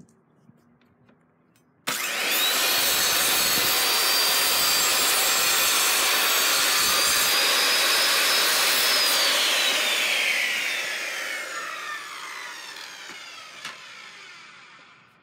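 Corded circular saw starting up about two seconds in and cutting through a wooden board with a steady high whine. It is then switched off, and the blade winds down with a falling whine that fades near the end.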